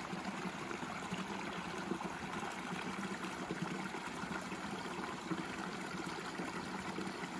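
Creek water running: a steady rush of flowing water.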